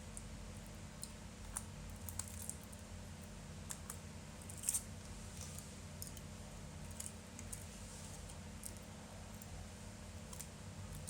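Scattered small clicks and scrapes of hand tools against the phone's parts as the Pixel 3 battery is worked loose, with a sharper click about halfway through. A faint steady low hum runs underneath.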